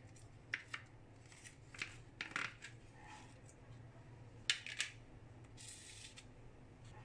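Clear plastic food container being unsnapped and its lid pulled off and handled: a scatter of sharp plastic clicks and crackles, the loudest cluster about four and a half seconds in, followed by a short rustle.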